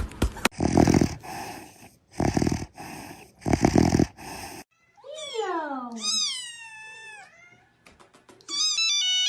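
A cat giving three harsh, rough cries, then two long meows, the first falling in pitch and the second rising and then falling. Near the end a short electronic melody of stepped beeps begins.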